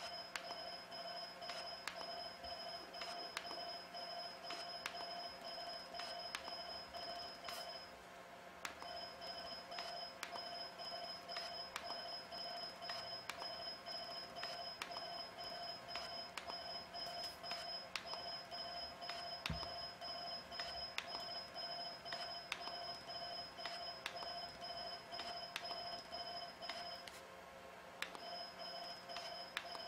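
Jeisys ULGEN HIFU handpiece firing: a steady electronic tone over a low hum, with a run of sharp clicks from the ultrasound shots. The tone stops briefly twice, about eight seconds in and near the end.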